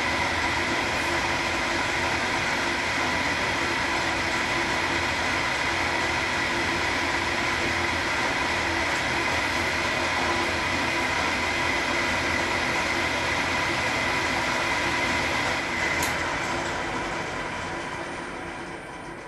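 Schaublin SV-51 milling machine running with a steady whine as its insert cutter takes a milling pass. A click comes about 16 seconds in, and the machine then runs down and fades out near the end.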